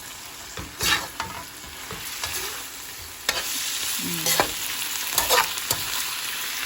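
Shrimp with sautéed onion, garlic and shrimp paste sizzling in a hot pan while a utensil stirs them, clicking and scraping against the pan. The sizzle gets louder about three seconds in.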